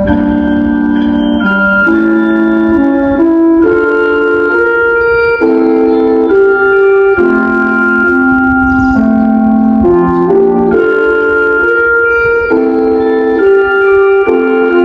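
Municipal disaster-prevention radio chime: a slow melody in sustained organ-like electronic chords, changing every second or two.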